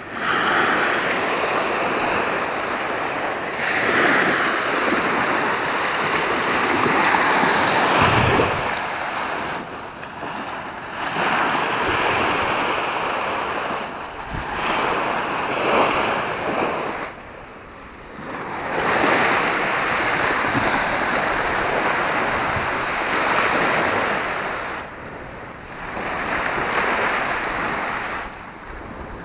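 Small waves breaking and washing up a sandy beach, the surf swelling and ebbing every few seconds, with wind buffeting the microphone now and then.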